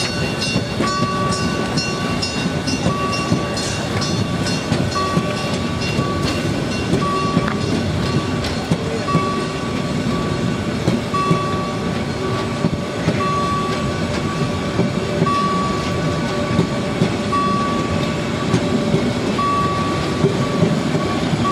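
Carriages of the Molli, a narrow-gauge steam railway, rolling slowly past with a steady wheel-and-rail rumble and scattered clacks. A short high tone repeats about every two seconds throughout.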